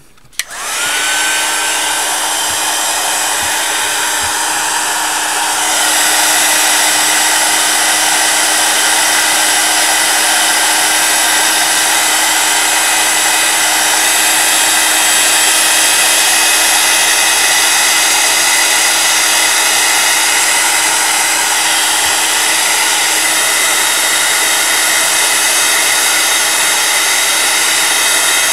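Handheld craft heat tool blowing hot air to dry freshly applied neon texture paste on a card. It starts with a short rising whine as the motor spins up, then runs steadily with a loud rush of air and a steady hum. It gets a little louder about six seconds in.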